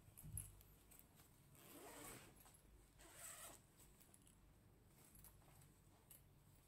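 Soft zipper of a Xiaomi Runmi 90 Point fabric packing cube being pulled open. It gives a click as the pull is taken, then two drawn-out runs, about two and three seconds in.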